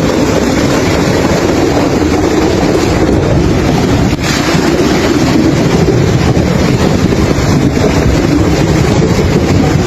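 Loud, steady rushing of fast-flowing floodwater, with wind buffeting the microphone.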